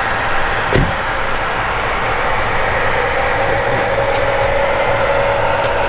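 Boeing 717 airliner's jet engines running, a steady rumble with a whine that rises slightly near the end.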